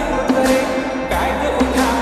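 Slowed-down, reverb-heavy Bollywood pop song, with a woman's voice singing a Punjabi-Hindi line over the music.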